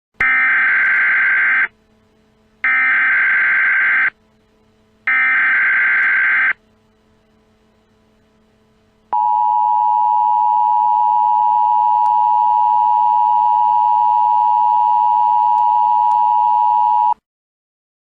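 Emergency Alert System SAME header: three bursts of screechy digital data tones, each about a second and a half long, followed about two seconds later by the two-tone EAS attention signal held steady for about eight seconds before it cuts off. Together they announce the start of an emergency alert message.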